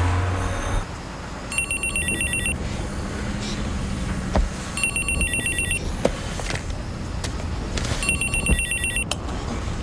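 Mobile phone ringing with an electronic trilling ringtone: three rings of about a second each, roughly three seconds apart.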